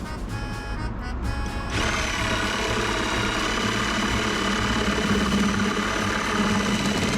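A handheld power tool starts about two seconds in and runs steadily with a whining motor, over background music.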